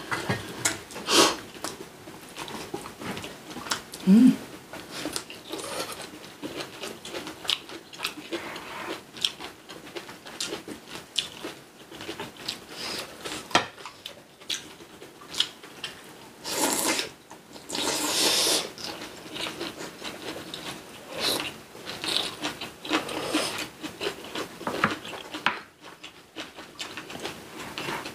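People eating braised pork back ribs with aged kimchi: chewing, with scattered small clicks and taps throughout and a couple of longer, louder noisy stretches about two-thirds of the way through.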